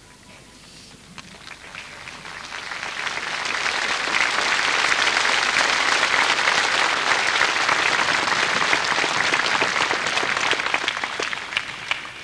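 Large crowd applauding, the clapping swelling over the first few seconds, holding steady, then easing a little near the end.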